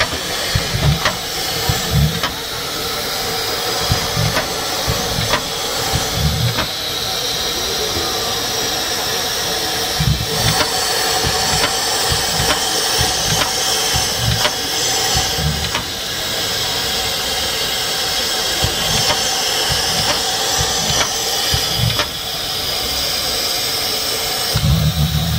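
Steady hiss of steam escaping from a steam locomotive, with irregular low thumps.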